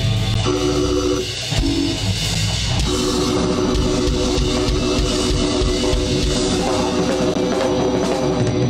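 Live blues-rock band playing: an electric guitar holds long sustained notes over a drum kit and bass guitar.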